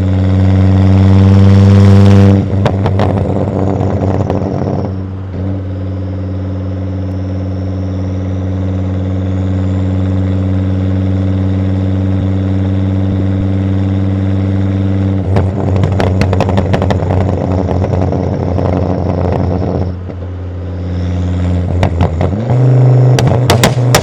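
Volvo S60 2.5T's turbocharged five-cylinder engine running through a catless exhaust. It holds a steady drone, broken three times by spells of crackling pops and bangs. The pitch rises near the end.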